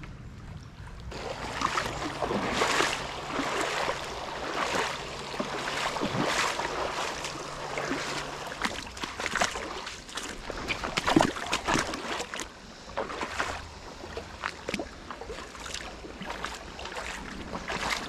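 Wading steps sloshing and splashing through shallow creek water over rocks, starting about a second in and going on in uneven surges.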